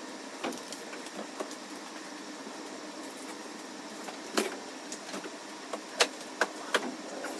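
Light knocks and clicks of a car windshield being worked out of its rubber gasket by hand, over a steady faint shop hiss. There are half a dozen short knocks, the sharpest a little past four seconds in and at six seconds.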